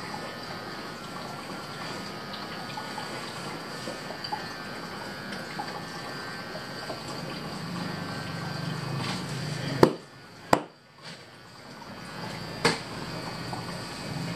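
Hands rubbing and kneading a back through a thick fleece robe during a massage, a steady rustling. Three sharp clicks come about two-thirds of the way through.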